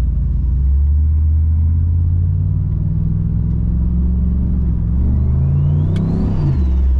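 Turbocharged LS V8 of a VF Commodore heard from inside the car while cruising: a steady low drone whose pitch climbs slowly. About six seconds in, the revs rise briefly and drop back, with a faint high whine rising and falling along with them.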